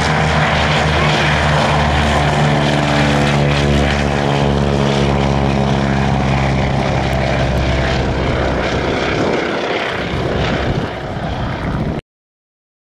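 Piston engines and propellers of vintage biplanes flying low past, running steadily, with the pitch sinking slightly in the second half. The sound cuts off abruptly about a second before the end.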